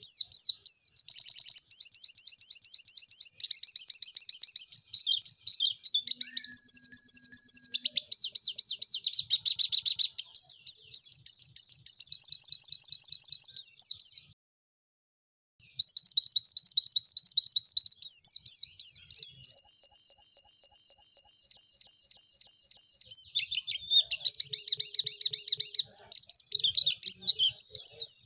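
White-eye (pleci) song: fast, high-pitched trilling and rapid repeated notes, nearly continuous, broken by one pause of about a second and a half about halfway through.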